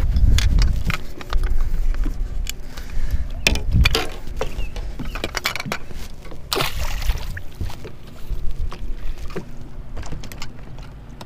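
Clicks, knocks and clatter of fishing gear being handled on a boat's deck, over a faint steady low hum, with a brief hiss about six and a half seconds in.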